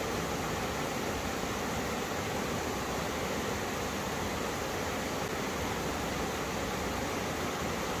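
Two mountain streams meeting, the water rushing over rocks in a steady, unbroken rush.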